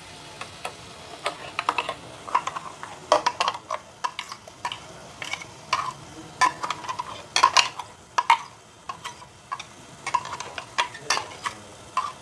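Steel spoon scraping and clinking against a stainless-steel mixer-grinder jar, in irregular metallic taps, as thick coconut paste is scraped out into the pan. Under it is a faint steady sizzle from the pan on a low flame.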